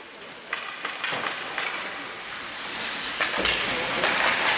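Ice hockey play: skate blades scraping the ice in a hiss that builds towards the end, with about five sharp clacks of sticks and puck.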